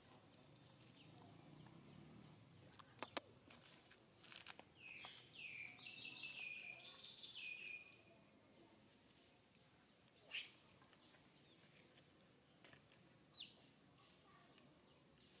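Faint, high-pitched animal calls: a run of repeated falling chirps and squeals about halfway through, lasting a few seconds, with two short sharp calls later. Two sharp clicks come just before the run.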